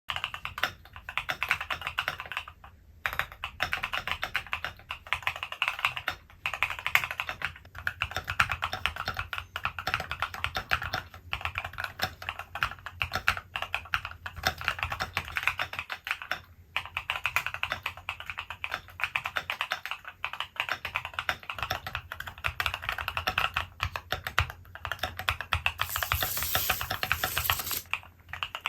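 Typing on a Wind Studio SIN65 custom mechanical keyboard: a fast, steady stream of keystroke clacks, broken by short pauses every few seconds.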